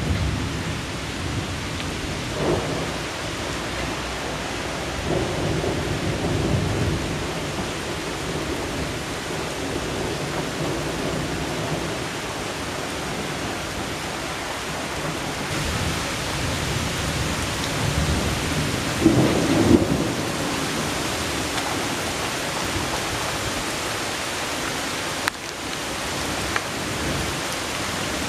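Steady rain falling through a strong thunderstorm, with thunder rumbling twice: once about a fifth of the way in and again, louder, about two-thirds through. The rain grows heavier about halfway.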